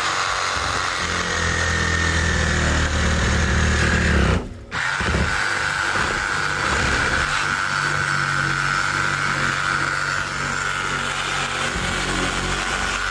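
Chainsaw running at high revs, cutting through branches, with a steady high whine over the engine hum. It cuts out briefly about four and a half seconds in, then runs on.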